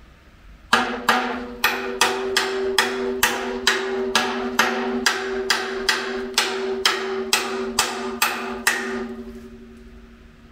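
Hammer repeatedly striking the steel air tank and top mounting plate of a Hitachi Bebicon BP-10T(N) air compressor: about twenty blows at roughly two to three a second. The tank rings on at two steady pitches between strikes. The blows stop about nine seconds in.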